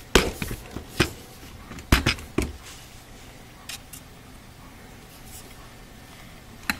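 Handling noise from working over an opened laptop: a few light, scattered clicks and taps, mostly in the first half, against a faint steady hiss.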